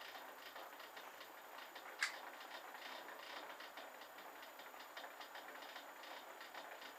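Clarke CL500M mini lathe running under power during thread cutting, its gear drive clicking rapidly and evenly over a faint motor hiss. One sharp click comes about two seconds in.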